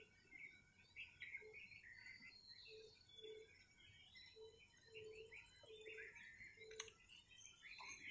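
Faint chorus of birds chirping and twittering at first light, with a low short note repeated about eight times from a second and a half in until about seven seconds in. A single sharp click just before the seven-second mark.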